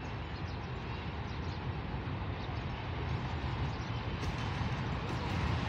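Low rumble of a distant GEU-40 diesel-electric locomotive approaching, growing slowly louder.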